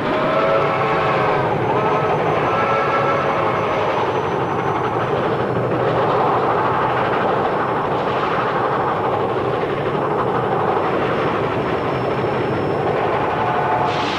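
A train running: a steady, loud rail rumble and clatter, with pitched horn- or whistle-like tones wavering in pitch during the first few seconds.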